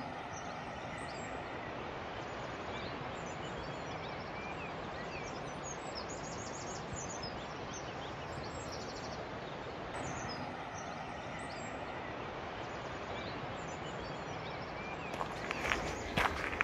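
Steady rushing outdoor background noise with scattered faint bird chirps, and footsteps on the path near the end.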